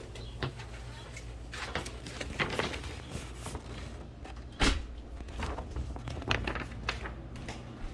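Footsteps and small knocks of someone walking through a house, with one louder knock a little past halfway.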